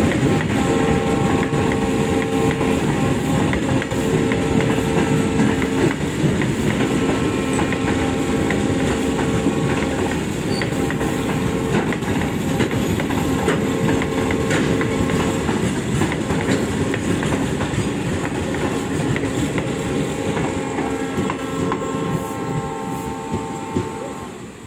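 Freight train hauled by a WDM-3D diesel locomotive passing close by, its flat wagons loaded with concrete sleepers, steel wheels clattering over the rail joints, with a steady hum that fades in and out underneath.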